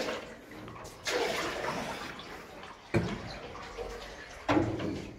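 Canoe paddles dipping and pulling through still water in a stone-arched tunnel. Three splashing strokes come about a second and a half apart, each one trailing off slowly.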